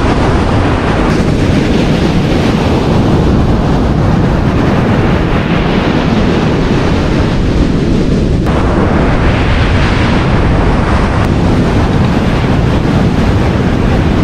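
Wind buffeting the microphone over steady surf breaking on a beach, the hiss of the waves swelling twice, near the middle and about two-thirds through.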